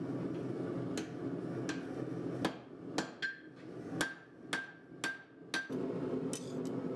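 Hand hammer striking a hot 52100/15N20 Damascus steel blade's tang on an anvil to clean up the handle profile: about nine light, uneven blows over the first five and a half seconds. The later blows leave a short, high ring from the anvil, and a steady low hum runs underneath.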